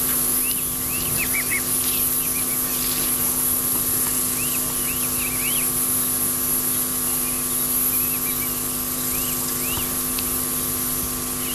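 Outdoor course ambience: small birds chirping in short scattered bursts over a steady hum and hiss.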